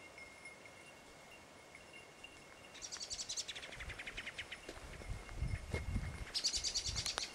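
A bird singing a rapid trill that falls in pitch, twice: about three seconds in and again near the end, over a faint steady high tone and a low rumble in the second half.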